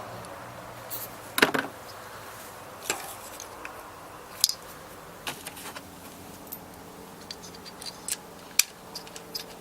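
Irregular light clicks and taps from handling coil-on-plug ignition coils and small hand tools, the sharpest about a second and a half in and again near the end.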